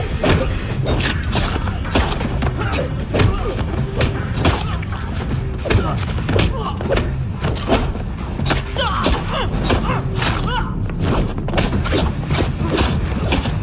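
Movie fight sound effects: punches and body hits landing in quick succession, over a pounding background score.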